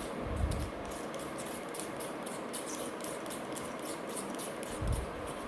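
A rifle scope being handled: faint scattered clicks and two soft thumps, over a steady fan-like hiss.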